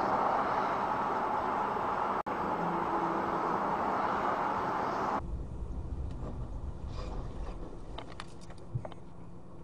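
Steady traffic and engine noise heard from inside a car, with a brief dropout about two seconds in. About five seconds in it switches abruptly to a quieter low cabin rumble with a few faint ticks and a short knock near the end.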